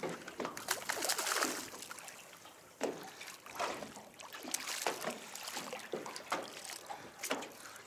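Water sloshing and splashing against the side of an aluminium boat as a hooked fish thrashes at the surface and is lifted out by the line.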